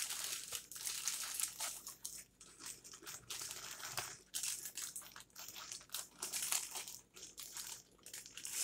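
Paper food wrapper crinkling and rustling in irregular bursts as it is opened and handled to pull out a rolled taco.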